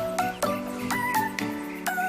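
Background music with a steady beat: regular percussive hits over held notes and short chirpy melodic figures.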